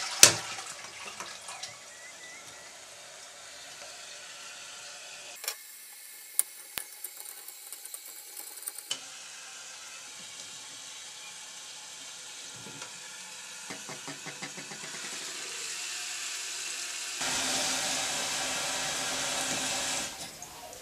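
Plastic clicks and handling on a toilet cistern's flush push-button and its fittings, the loudest a sharp click right at the start, over a steady hiss of water running in the cistern that grows louder for the last few seconds.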